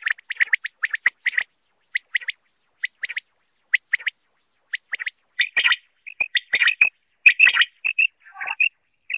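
Common quail calling: short, high notes in quick clusters of two or three, spaced out at first, then louder and more crowded from about five seconds in.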